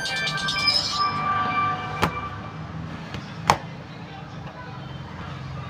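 A ringtone-like melody played on a phone's speaker, fading out about a second and a half in. Then come two sharp clicks about a second and a half apart, over a steady low hum.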